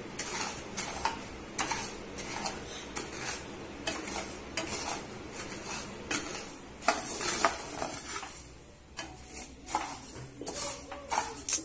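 Wooden spatula stirring and scraping dry ponni rice around a non-stick pan as the rice dry-roasts toward brown, a rattling rustle of grains in quick, irregular strokes. It eases off for a moment about eight seconds in, then picks up again.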